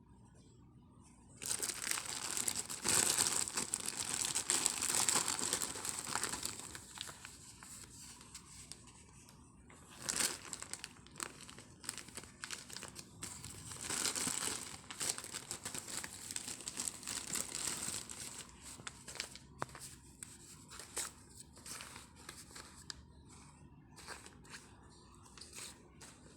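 Packaging crinkling and rustling as a parcel of cotton yarn is unwrapped by hand. A long spell of crinkling starts about a second and a half in, more comes around ten and fourteen seconds in, and it tapers to scattered light rustles and clicks near the end.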